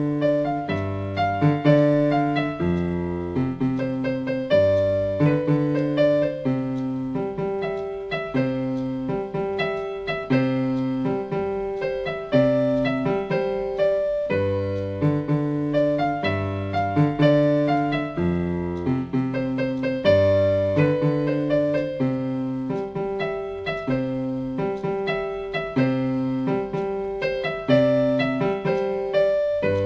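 Electronic keyboard played with a piano voice: a Kenyan rumba tune with low bass notes moving in a steady rhythm under sustained chords and melody.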